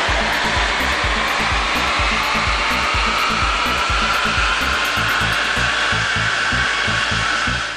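VW Scirocco 2.0 TDI common-rail diesel engine pulling at full load on a chassis dynamometer, with the wheels spinning the rollers. Its roar climbs steadily in pitch as the revs rise, then cuts off suddenly at the end of the power run.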